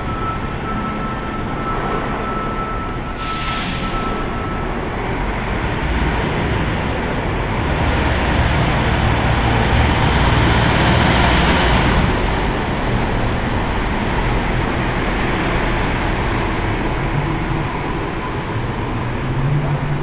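MCI D4500CT diesel commuter coach pulling away and driving past, loudest about ten seconds in as it passes close, then fading as it drives off. A short air hiss comes about three seconds in.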